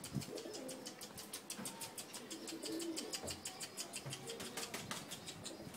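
Pigeons: a fast, even patter of wingbeats, about eight a second, with faint cooing underneath.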